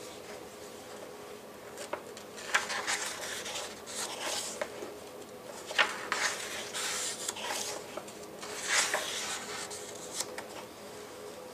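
Pages of a large picture book being opened and turned by hand: several separate bursts of paper rustling and rubbing, the sharpest about six seconds in and another about nine seconds in.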